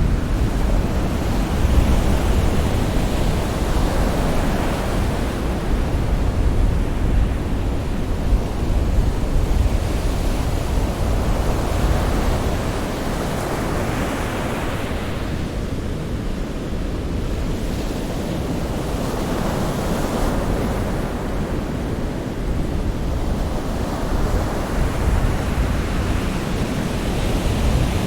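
Ocean surf: waves washing in and out, the hiss swelling and fading every several seconds over a steady low rumble.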